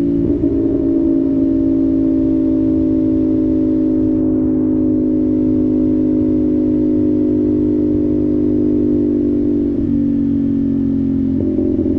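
CFMOTO 450SS parallel-twin engine running at steady cruising revs, its note sagging slowly. About ten seconds in the note drops as the throttle eases, then it comes back up near the end.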